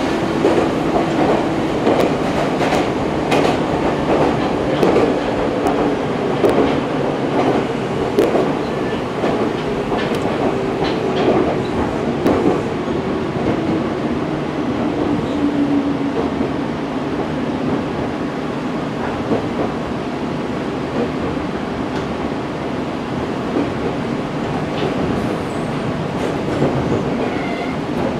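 Inside the cabin of a Meitetsu 6000 series train in motion: steady running noise with wheel clicks over rail joints, mostly in the first half. A humming tone slides down in pitch about halfway through as the train slows, and the noise is quieter after that.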